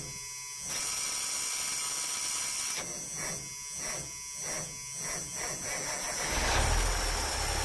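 Autocar Construcktor dump truck's starter motor cranking the engine with a whir that pulses as it turns over. About six seconds in the engine catches and runs with a deep low rumble through its newly replaced muffler.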